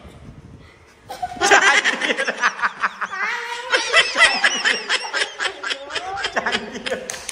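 Young women laughing: after a quiet second, one breaks into long, hearty laughter made of quick, rapid-fire bursts that carries on to the end.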